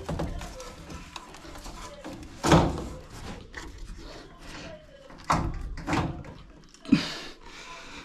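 Thuds and clunks from the tipped-over washing machine's sheet-metal cabinet being handled and knocked. There are four sharp knocks, the loudest about two and a half seconds in and three more close together near the end.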